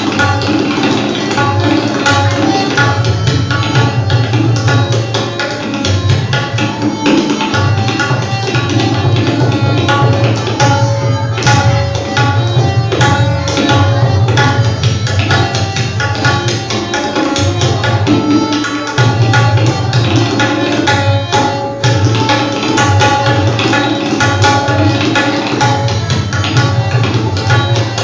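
Tabla solo: rapid, dense strokes on the dayan and bayan, with deep bass bayan strokes coming in stretches and dropping out for moments, over a harmonium playing the steady repeating lehara melody.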